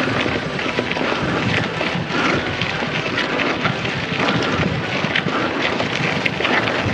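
Bicycle rolling over a rough dirt trail: a steady rush of tyre noise with many small rattles and clicks, and wind noise on the microphone.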